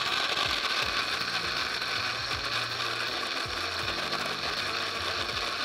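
Electric mixer-grinder switched on and running steadily, its steel jar grinding chicken into a smooth keema paste.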